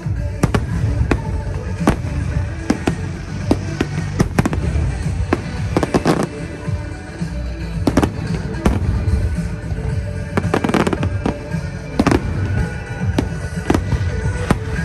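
Fireworks bursting overhead, many sharp bangs in quick succession over a continuous low rumble, with music playing at the same time.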